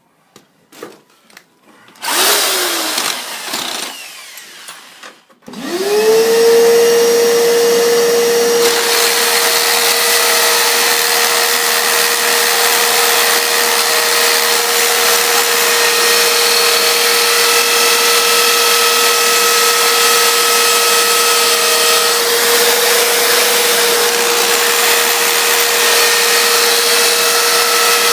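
An electric motor briefly runs and slows down with a falling tone, then about five seconds in it spins up and runs at a steady, even speed.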